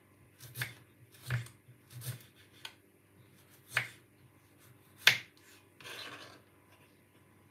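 Kitchen knife slicing a radish on a wooden chopping board: a series of irregular sharp taps of the blade on the board, the loudest about five seconds in, with a short scrape about six seconds in.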